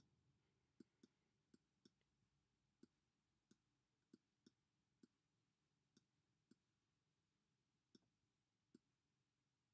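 Near silence with about a dozen faint, short clicks at irregular intervals: a stylus tapping down on a writing tablet as each stroke is written.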